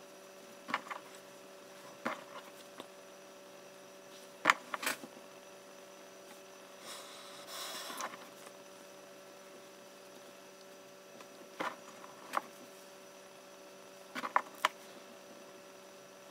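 Steady electrical mains hum, with scattered small clicks and taps as makeup brushes and products are handled, and a short soft hiss about seven seconds in.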